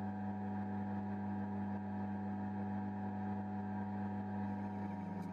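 Electric motor running at a steady speed: a constant, even hum with a low drone. A short click comes right at the end.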